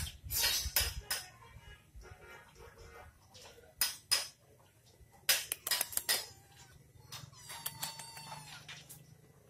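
Sharp clacks and knocks, the loudest in the first second and again around the middle, then a cat meowing with a wavering pitch in the second half.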